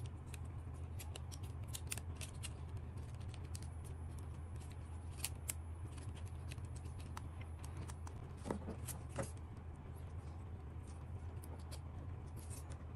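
Scattered small clicks and light taps of plastic parts and cable connectors being handled inside an opened DJI Mini 3 Pro drone body, with a few louder clicks about five seconds in and again around eight to nine seconds, over a steady low hum.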